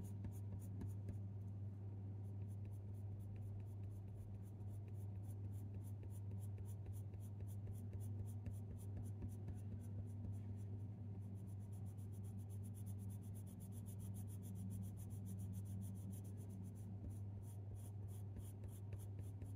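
Coloured pencil scratching on hot-pressed watercolour paper in quick, short flicking strokes, over a steady low hum.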